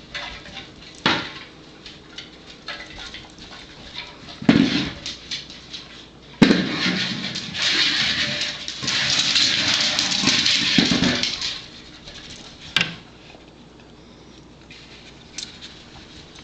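A hard plastic Buster Cube treat-dispensing toy being nosed and rolled by a dog. It gives several sharp knocks, and in the middle there is a few seconds of continuous rattling as it tumbles with treats loose inside.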